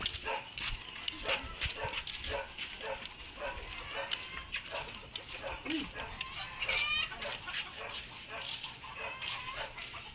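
Chickens clucking in short repeated notes, with a brief higher call about seven seconds in.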